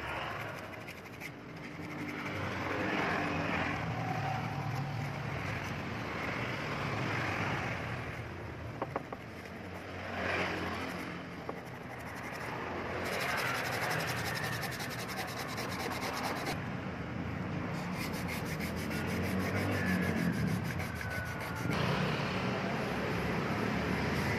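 Sandpaper rubbed by hand over a steel knife blade cut from a motorcycle brake disc, in repeated scratchy strokes.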